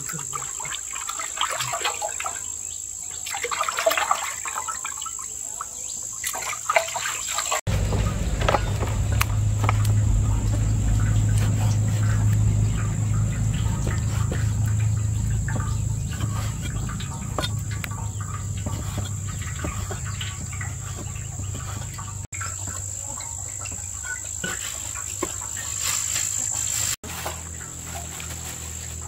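Crickets trilling steadily at a high pitch throughout. Over them sit scattered clicks and knocks, and a low rumble that starts abruptly about eight seconds in and fades back about twenty-two seconds in.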